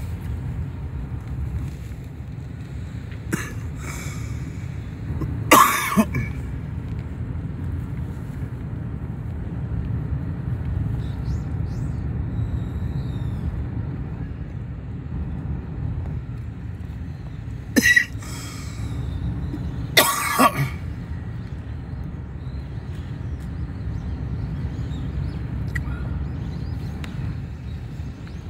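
Steady low rumble of a car driving slowly, heard from inside the cabin. Cut through by a person coughing: a short double cough about six seconds in and two more coughs about two-thirds of the way through.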